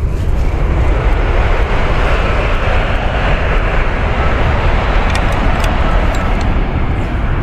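A high-speed train crossing a railway viaduct, making a steady rushing noise that swells up just after the start and holds.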